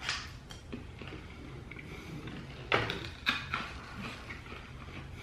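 A few faint clicks and taps as a small cardboard box of grape candy is handled, with two sharper clicks about three seconds in.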